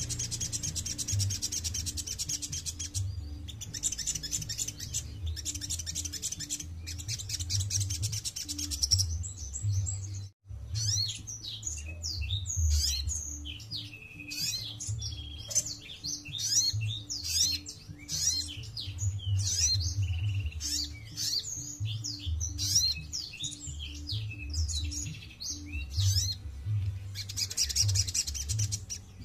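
Caged sunbird singing: a fast, buzzing high trill for the first nine seconds and again near the end, with a run of varied sharp chirps and short whistles in between.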